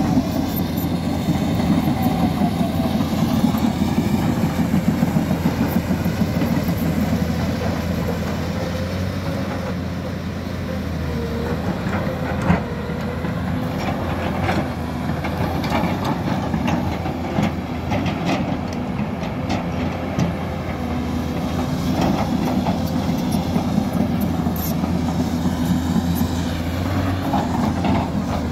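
Hyundai crawler excavator's diesel engine running steadily, with irregular clanks and rattles from the machine working and its steel tracks, and one sharper knock about twelve seconds in.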